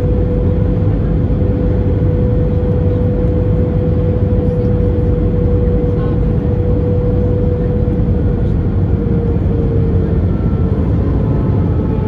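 Airbus A321 cabin noise in flight, heard from a window seat by the wing: a steady rumble of jet engines and airflow with a steady hum tone that wavers slightly near the end.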